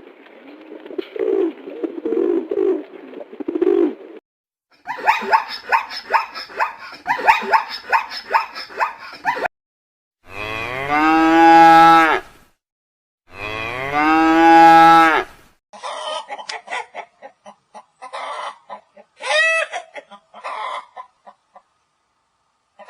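A series of farm animal calls: the loudest are two long cow moos of about two seconds each near the middle, with shorter clucking, fowl-like calls before and after.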